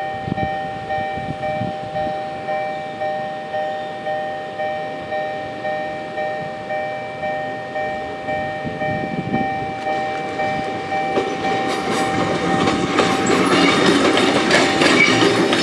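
A railway level-crossing alarm rings steadily, a pitched ding pulsing a little under twice a second. From about ten seconds in, a vintage Kotoden electric car draws near during yard shunting, its wheels clattering over rail joints and points and growing louder until it drowns the bell near the end.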